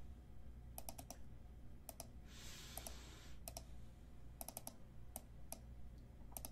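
Faint computer keyboard and mouse clicks, coming in small quick clusters of two to four, as a list is copied and pasted into a spreadsheet. A soft rustling hiss lasts about a second, a little after two seconds in.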